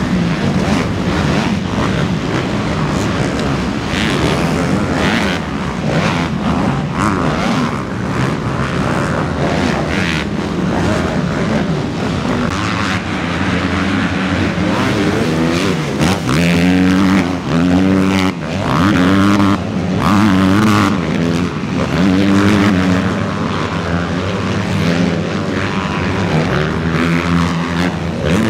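Motocross bike engines racing on a dirt track, revving hard up and down through the gears. Past the middle, one bike's engine note comes to the front, climbing and dropping in pitch several times in quick succession.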